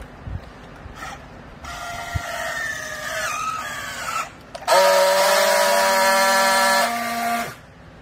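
Battery-powered handheld plastic strapping tool working on a bale strap: a wavering motor whine as it pulls the strap tight, then a loud steady buzz for about three seconds as it friction-welds the strap's seal. The buzz steps down shortly before it cuts off.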